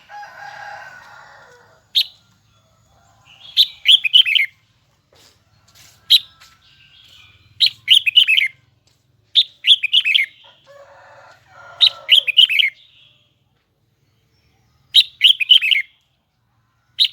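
Red-whiskered bulbul singing: loud, high-pitched short phrases of quick falling notes, repeated every two to three seconds, with softer chattering calls in between.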